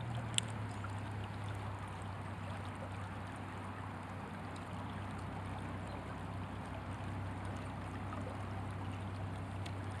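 Shallow creek water running steadily past, an even rushing hiss, with a single sharp click about half a second in.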